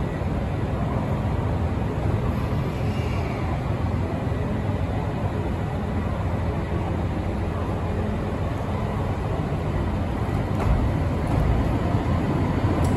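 JR Hokkaido 789 series electric limited express train standing at a station platform with a steady low hum, then starting to pull out, its rumble growing a little louder in the last few seconds.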